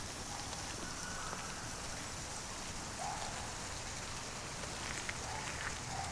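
Steady rain falling on a gravel path and wet leaves: an even hiss with no break.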